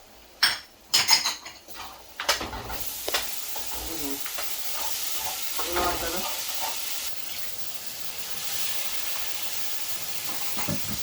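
A spoon clinks against the pot a few times, then hot oil and masala start sizzling steadily about two seconds in as a little water goes into the pan of frying onions and spices, with stirring.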